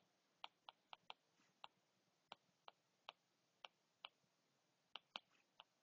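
Faint, irregular clicks of handwriting on a tablet touchscreen, about two or three taps a second as the strokes of the letters are put down.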